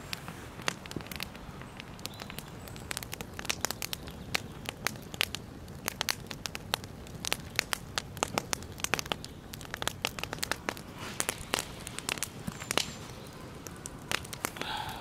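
Wood campfire burning and crackling, with many irregular sharp pops and snaps over a steady low hiss.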